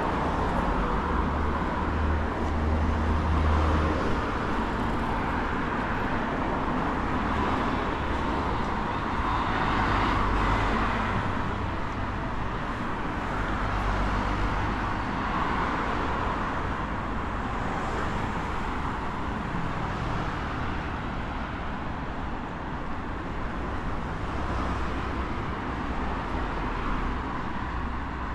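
Road traffic: a steady wash of cars going by, swelling and easing several times as vehicles pass.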